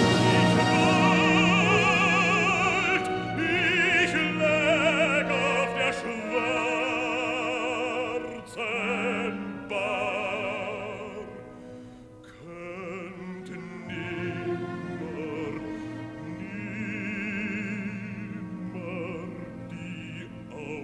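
Baritone singing with a symphony orchestra in slow lines with a wide vibrato. The music grows much softer about halfway through and goes on quietly.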